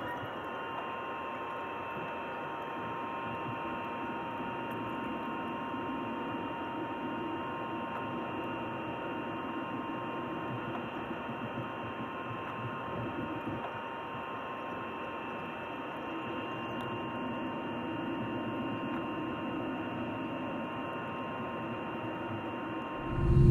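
Steady cabin noise inside an Airbus A330-200 taxiing: an even hum with two steady whining tones. In the last moment it jumps abruptly to a much louder low rumble as the takeoff run begins.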